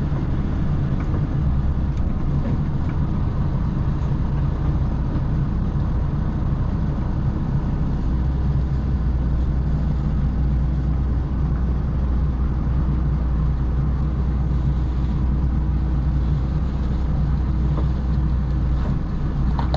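Lorry's diesel engine running steadily as a low, even hum from inside the cab, the lorry pulled over.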